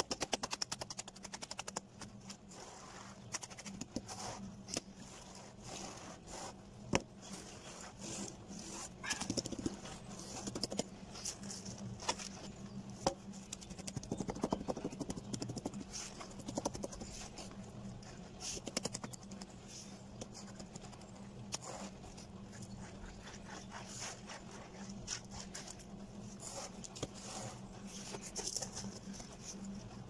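Wooden screed board being drawn and sawn across wet concrete to level a slab, giving gritty scraping with irregular clicks and taps.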